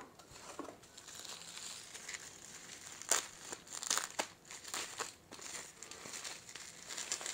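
Bubble wrap crinkling and crackling as it is handled and unwrapped from a deck of playing cards, with a few sharper crackles in the middle.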